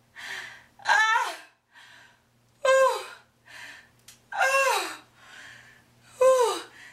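A woman crying out in pain again and again, with four loud cries that each fall in pitch, about every one and a half to two seconds, and quieter gasping breaths between them. She is having pains in her belly.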